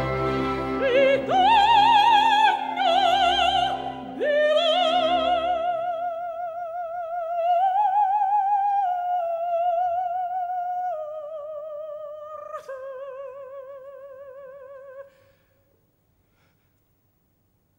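A woman's operatic voice singing with wide vibrato over sustained orchestral chords. The orchestra drops out about five seconds in, and the voice carries on alone in long held notes, growing softer, then stops a couple of seconds before the end, leaving near silence.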